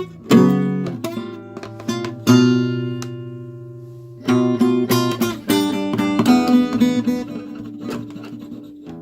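Acoustic guitar playing chords: plucked and strummed chords that ring out and fade, with a held chord a couple of seconds in, then quicker strumming.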